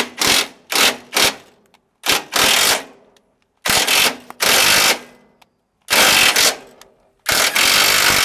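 Pneumatic air tool worked against sheet metal in bursts: three quick short bursts at first, then longer bursts of half a second to about a second with short pauses, while the wheel-arch repair panel is being shaped.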